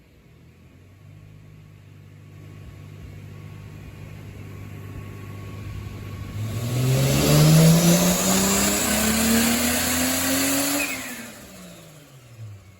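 Turbocharged Toyota 2JZ-GE VVT-i straight-six in a Lexus IS300 making a dyno pull on E85 at about 8 psi of boost. The engine runs steadily at first. About six seconds in, its pitch climbs loudly and steadily for some four seconds, with a rising high whine above it. Near the end the revs fall away as the throttle closes.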